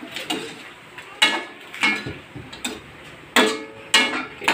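Metal spatula knocking and scraping against a stainless steel wok while stirring: sharp ringing clanks, about seven of them, roughly every two-thirds of a second.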